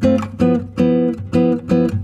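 Background music: a strummed guitar playing a steady rhythm, with the chord ringing between strokes.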